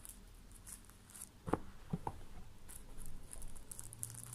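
Faint crinkling and rustling of a plastic wrapper as a phone in its plastic sleeve is handled over its box, with a few sharp knocks about one and a half to two seconds in.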